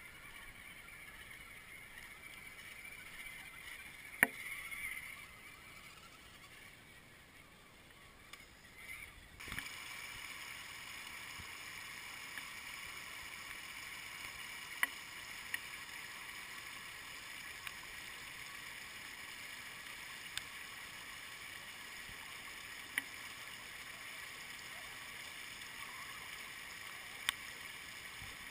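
Shallow stream rushing over stones and debris, a steady hiss that comes in abruptly about a third of the way in. Before that it is quieter, with one sharp click a few seconds in and a few faint ticks scattered through.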